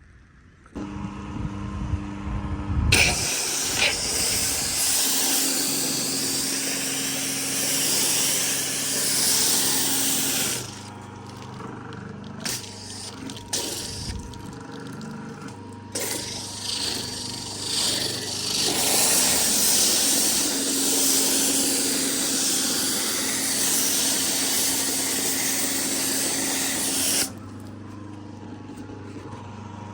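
Pressure washer running with a steady pump hum, spraying water in long hissing spells broken by a few short bursts.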